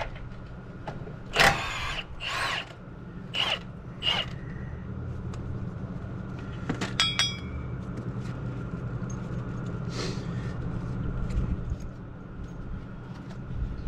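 Short bursts from a cordless impact wrench removing fasteners on a truck's front suspension: four in the first few seconds and another about ten seconds in. A ringing metallic clink comes around seven seconds in, over a steady low hum.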